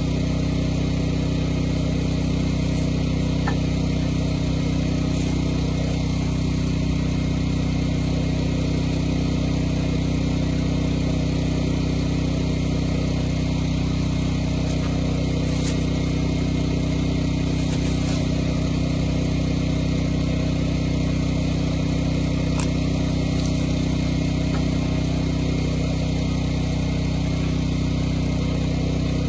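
Portable gasoline generator (Briggs & Stratton) running steadily at constant speed, a low, even engine hum.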